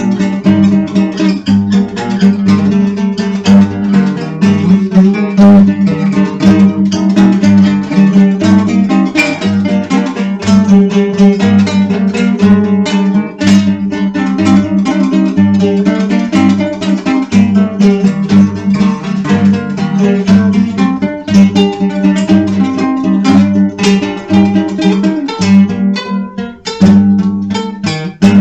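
Acoustic guitar music: dense plucked and strummed strings over a sustained low drone and a steady pulsing bass.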